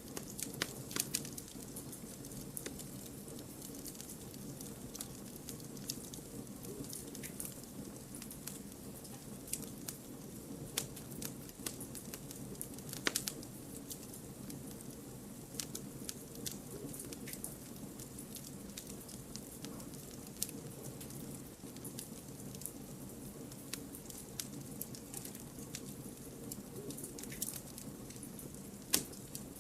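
Firewood burning in a campfire: a steady low rush of flame with frequent sharp crackles and pops scattered irregularly, a few louder snaps among them.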